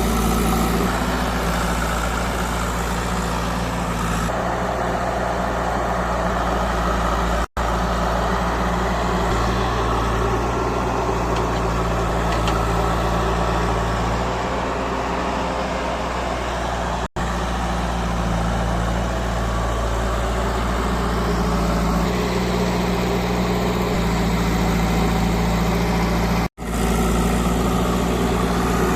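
JCB 3DX backhoe loader's diesel engine running steadily as the machine works, its note shifting slightly a couple of times. The sound breaks off for an instant three times.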